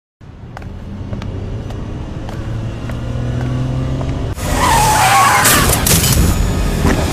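Car engine running and rising in pitch as it speeds up, then from about four seconds in a loud tyre screech of hard braking with heavy thuds as the car strikes a person.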